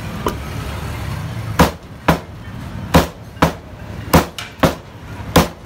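Cleaver chopping through chicken meat and bone on a wooden chopping block: about seven sharp strikes at uneven intervals, most of them in the second half, over a steady low rumble.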